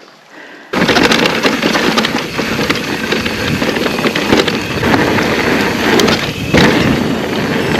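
Loud rushing wind noise on the microphone with knocks and rattles, as when riding a mountain bike over rough trail, cutting in abruptly about a second in.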